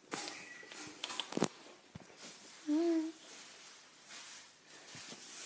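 Two short bursts of rustling noise in the first second and a half, a single click about two seconds in, then a brief sound from a person's voice, a short low wavering note, about three seconds in.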